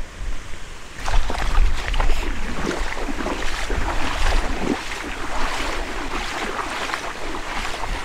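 Feet wading through shallow lagoon water, a steady run of splashes starting about a second in, with wind rumbling on the microphone.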